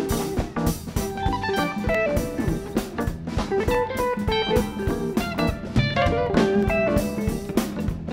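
Live blues-rock band in an instrumental jam: an electric guitar plays quick runs of notes over a drum kit.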